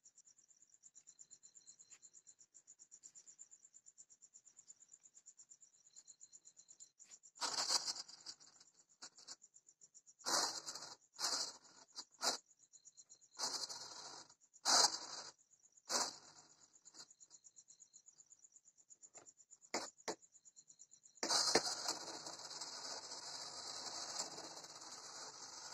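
Small electric motor and propeller of a homemade foam RC plane, run in a series of short bursts and then held running steadily for the last few seconds. A steady, high-pitched pulsing chirr runs faintly underneath.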